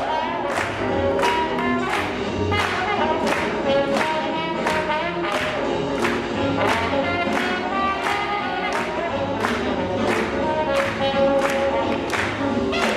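Upbeat swing music with singing over a steady, brisk beat.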